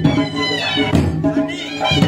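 Live Pahari folk music: barrel drums (dhol) beating a steady rhythm of about two strokes a second under a wind instrument carrying the melody.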